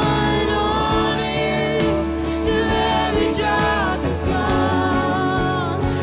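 Live worship song: a woman's lead vocal over strummed acoustic guitar, bass guitar and keyboard, with a few drum hits.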